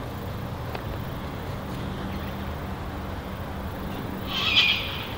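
Steady low hum of an approaching V/Line N class diesel locomotive still out of sight, with a short, high-pitched animal call about four and a half seconds in that is the loudest sound.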